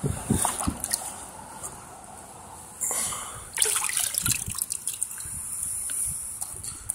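A rubber boot wading through shallow water, splashing and sloshing in several uneven bursts, the biggest near the start and from about three seconds on.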